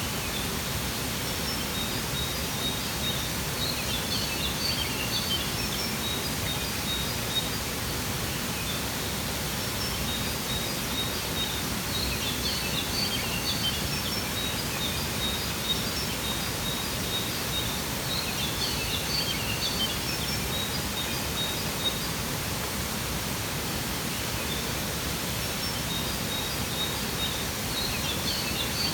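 A waterfall's steady rushing water, with small birds chirping high over it in short flurries that come back every six to eight seconds.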